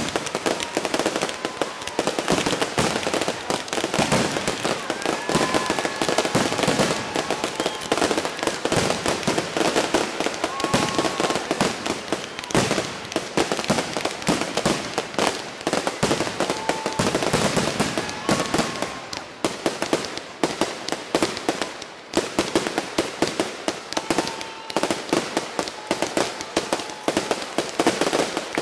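Fireworks display in a dense, unbroken barrage: rapid bangs and crackles overlapping one another without a pause, with a few brief steady high tones mixed in.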